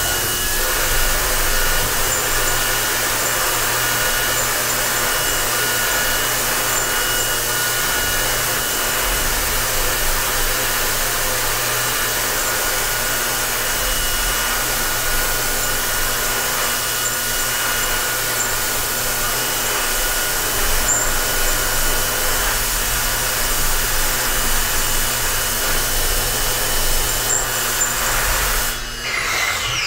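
Jabro High Feed JHF980 five-flute end mill cutting steel in a CNC machining centre at 7160 rpm: a steady, dense cutting hiss with high steady whine tones from the spindle and cut, fading out near the end.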